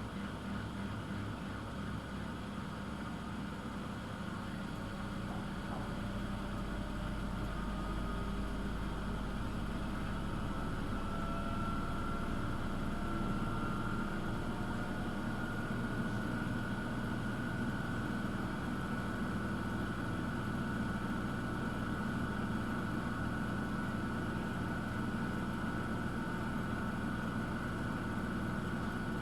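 Miele W1 washing machine running just before its spin, a steady low hum with a motor whine that slowly rises in pitch from about a third of the way in. The strange noise is one that the service put down to the machine not standing level or not being used properly.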